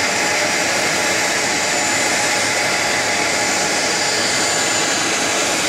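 Bombardier CRJ-200's rear-mounted General Electric CF34 turbofan engines at taxi power: a steady high whine over a loud rushing hiss.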